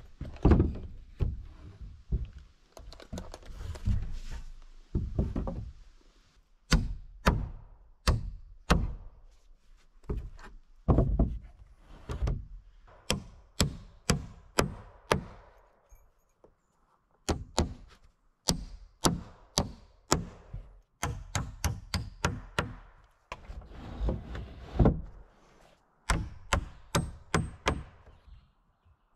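A hammer driving nails into milled pine wall framing: runs of sharp knocks, several blows to a nail, with short pauses between runs.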